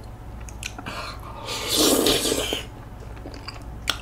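A person eating spicy tteokbokki (Korean rice cakes in red sauce) takes a bite, with one loud breathy mouth noise about a second long about one and a half seconds in.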